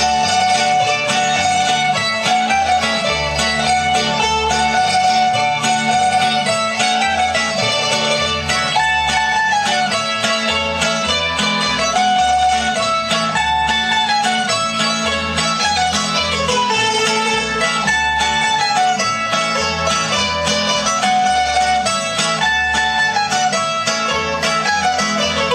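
Folk dance music played on plucked string instruments: a bright, moving melody over a regular bass line.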